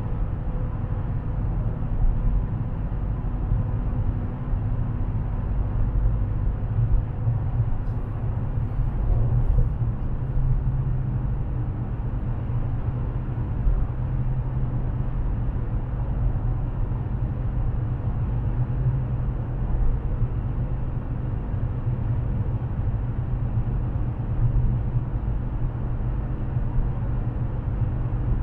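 Dodge Challenger cruising steadily at highway speed, heard from inside the cabin: a continuous low drone of engine and tyre noise with no change in pace.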